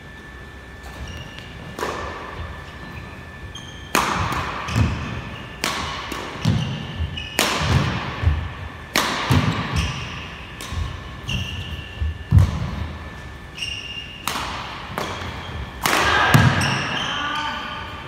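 Badminton rally: sharp racket-on-shuttlecock smacks about once a second, with low footfall thuds and short squeaks of shoes on the court floor between the shots.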